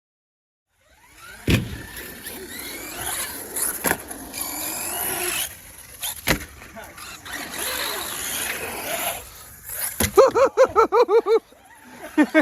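Electric radio-control cars driving: motors whining up and down in pitch as they speed up and slow down, with several sharp landing thumps. Near the end comes a rapid run of squeals, about eight a second, lasting just over a second.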